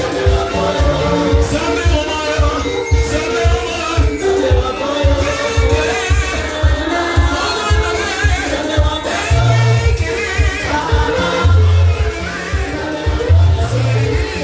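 Live gospel praise and worship music: singing over a band with a steady bass beat.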